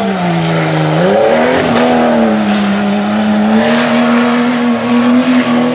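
Jeep Cherokee XJ's engine running hard under load off-road: the revs dip briefly, climb again about a second in, then hold high and steady.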